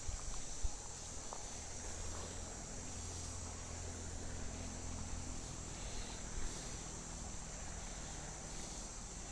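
Steady high-pitched chirring of insects in the open air, with a low rumble through the middle and a couple of faint knocks near the start.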